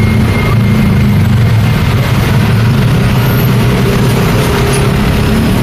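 Busy road traffic, with a vehicle engine running close by as a steady low drone under the general traffic noise.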